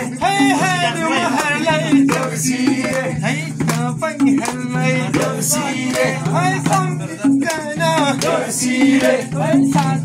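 Singing of a Nepali Deusi festival song, the voice moving in quick, bending melodic lines over a steady, repeating drum rhythm.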